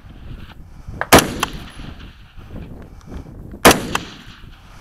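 Two shots from a custom AR-15 carbine firing .223 through a Surefire muzzle brake, about two and a half seconds apart, each with a short tail.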